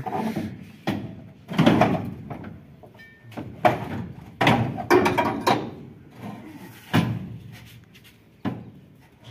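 Irregular metal knocks and clanks, about eight of them, as the heavy steel drum of a Swaraj 8100 combine harvester is shifted and rigged on a rope for lowering out of the machine.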